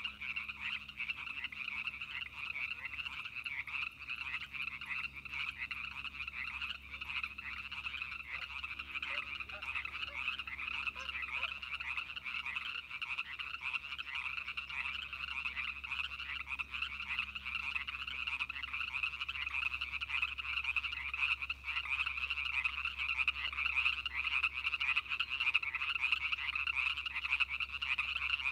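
Dense chorus of many frogs calling at once: a steady, unbroken mass of rapid, overlapping pulsed calls.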